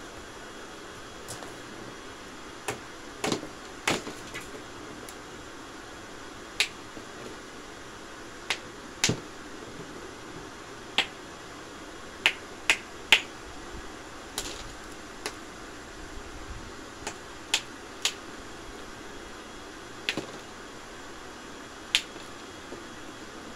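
About twenty sharp clicks and snaps at irregular intervals over a steady low hum, the loudest cluster about halfway through.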